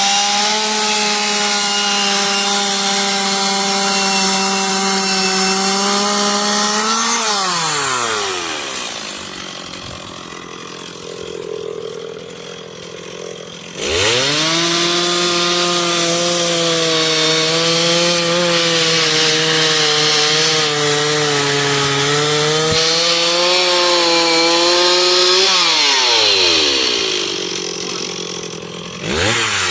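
Chainsaw cutting wood at full throttle, its pitch falling to idle about seven seconds in. About six seconds later it revs sharply back up and runs under load with a wavering pitch for roughly twelve seconds before dropping back, with a short blip of throttle near the end.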